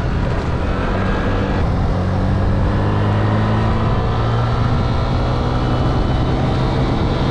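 Small moped engine running steadily under way, its pitch shifting slightly about four seconds in.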